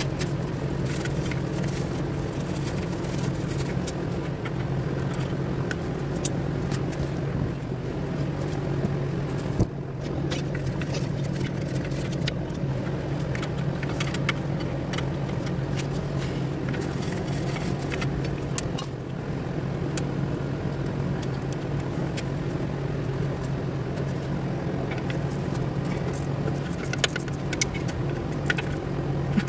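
Scattered metallic clicks and taps of a wrench and ratchet working bolts on a van's rear brake backing plate, more of them near the end, over a steady low hum.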